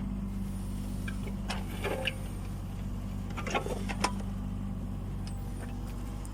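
Kubota U20 mini excavator's diesel engine running steadily under digging load. Over it come short bursts of metallic clanking and scraping, about one and a half seconds in and again around three and a half seconds, ending in one sharp knock.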